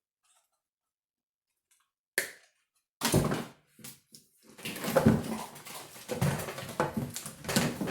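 Wires and plastic connectors of a car engine wiring harness being handled, rustling and clacking irregularly after about two seconds of near silence.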